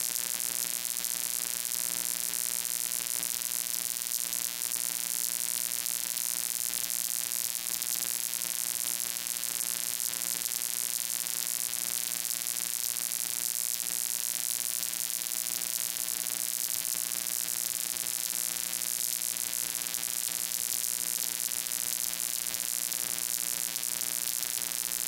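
Steady electrical hum with a loud, even hiss over it, unchanging and with no other events.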